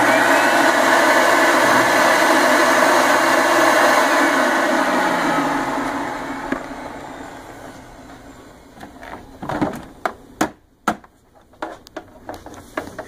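Rug Doctor X3 carpet cleaner running loud and steady, being tested on the carpet setting after a pump replacement. After about five seconds it is switched off and its motor winds down, falling in pitch and fading over a few seconds. Then come several sharp knocks and clunks as the machine is handled.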